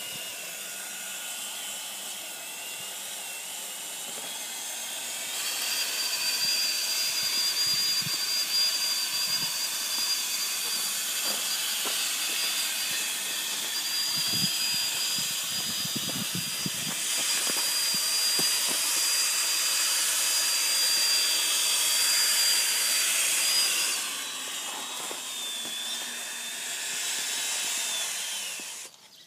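Drivetrain of a radio-controlled Tatra 148 dump truck model running: a steady high gear whine that climbs in pitch about five seconds in as the truck speeds up, holds, then falls away near the end, over a hissing noise from the drivetrain and the tyres on gravel, with a few knocks of the wheels over stones in the middle.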